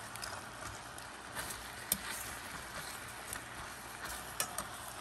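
Chicken pieces sizzling in hot oil in a stainless steel pan, a steady frying hiss. A few sharp clicks of metal tongs against the pan come as the pieces are turned.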